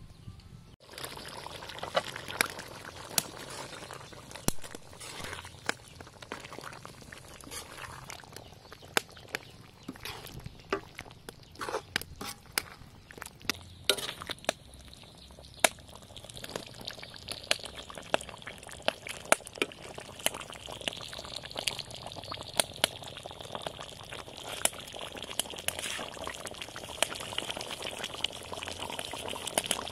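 Chicken in coconut milk curry simmering in a metal wok: the thick sauce bubbles with many sharp pops, and a steady hiss joins in from about halfway through.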